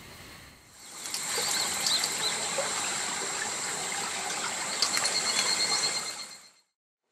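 Running stream water with a steady high insect chirring and a few short bird chirps. It fades in about a second in and cuts off to silence near the end.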